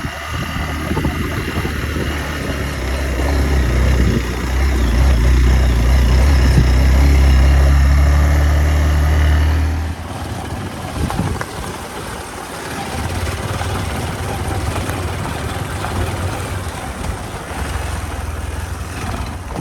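Hero Xpulse 200 single-cylinder motorcycle engine running while riding, its steady note growing louder over the first half. About halfway it changes abruptly to a quieter engine under rushing wind noise.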